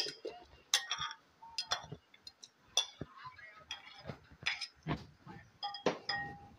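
Irregular clinks and light knocks on a ceramic bowl of small fish as they are cut and handled, one clink near the end ringing on briefly.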